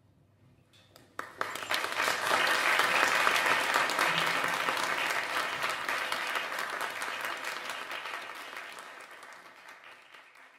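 Audience applause in a concert hall. After about a second of hush, a few early claps come in, then full applause swells quickly and slowly fades away.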